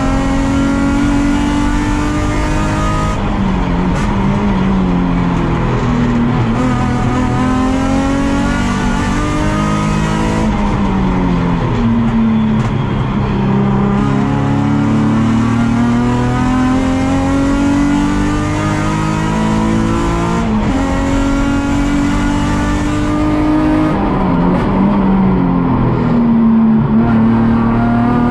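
Nissan 350Z race car's 3.5-litre V6 heard from inside the cabin under racing load, repeatedly climbing in pitch as it accelerates and dropping away with gear changes and braking for corners.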